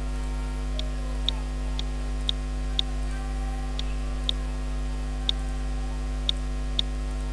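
Computer mouse clicking, sharp single clicks mostly in pairs about half a second apart, repeated several times as buttons are clicked and confirmed. A steady electrical mains hum runs underneath.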